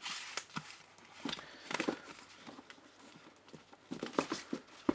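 Books being handled on a wooden shelf: taps, knocks and scraping rustles in three bunches, the last ending in a sharp knock.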